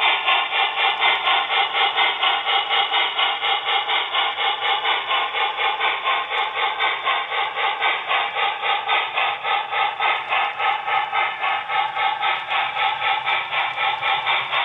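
Steam locomotive chuffing in a steady, even rhythm of about three beats a second, with a rattling undertone and a thin, narrow sound.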